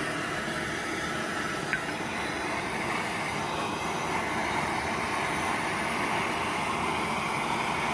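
Hand-held propylene gas torch burning steadily, a constant hissing rush of its flame as it heats a crucible.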